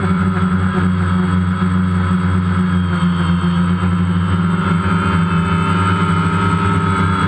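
DJI Phantom quadcopter's electric motors and propellers giving off a steady, even buzz, heard close up through the GoPro carried on the drone.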